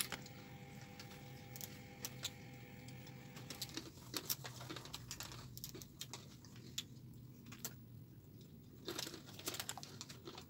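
Hands handling a smartphone in a plastic case: scattered small clicks, taps and rubbing, with a faint steady tone in the first few seconds that stops.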